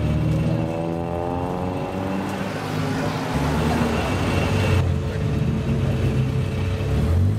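Lowered old car's engine revving through its exhaust, the pitch climbing over the first couple of seconds. About five seconds in the sound cuts abruptly to a steadier, lower engine note.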